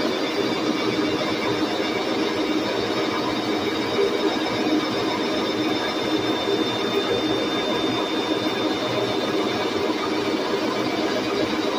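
Lucas horizontal boring mill taking a milling cut along an aluminium bracket under steady table feed: an even cutting noise with a thin high whine over it.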